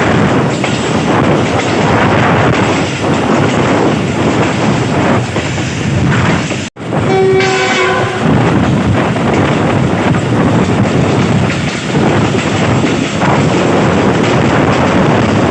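Passenger train running at speed, heard from aboard: a steady rumble of wheels on rail with wind noise. About seven seconds in the sound cuts out for an instant, then a train horn sounds briefly for about a second.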